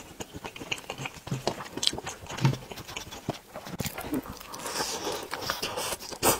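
Close-miked eating of braised pork trotter: chewing with wet mouth clicks and smacks at an irregular pace. The loudest smacks come about two and a half seconds in and just before the end.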